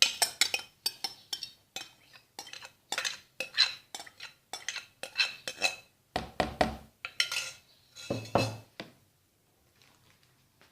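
A spoon clinking and scraping against a bowl as yogurt is spooned into it, with many short ringing knocks. Two heavier, duller knocks come about six and eight seconds in, and the sounds stop about a second before the end.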